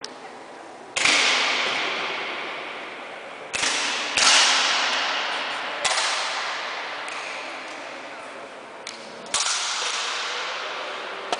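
Air rifles firing in a 10 m precision match: about five sharp cracks at irregular intervals, roughly a second in, twice close together around three and a half to four seconds, near six seconds and near nine and a half seconds, plus a couple of fainter shots. Each crack echoes long in the large sports hall.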